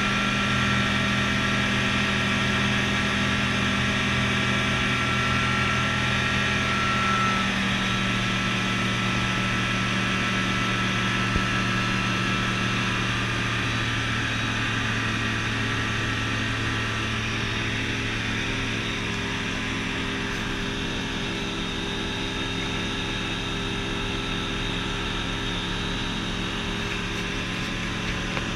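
Rotax 912 iS Sport four-cylinder aero engine and propeller of a light amphibious aircraft droning steadily in flight, heard from inside the cockpit. The engine note drops slightly about a quarter of the way through, then holds.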